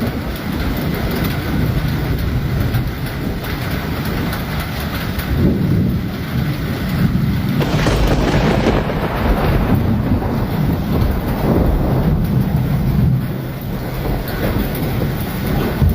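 Heavy hailstorm: hail and rain coming down hard, a dense steady din with a deep low rumble underneath. The sound shifts abruptly about eight seconds in.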